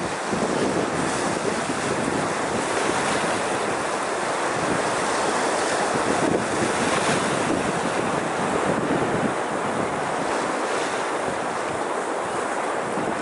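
Small sea waves breaking and washing over shoreline rocks in a steady wash of surf, with wind noise on the microphone.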